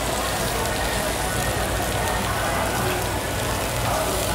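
Pork belly, beef and shrimp frying on a hot tabletop barbecue grill plate: a steady sizzle.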